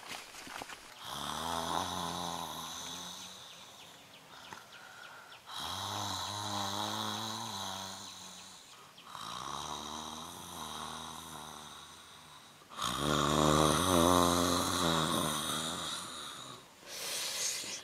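A man snoring in his sleep: four long snores, one every four seconds or so, the last the loudest.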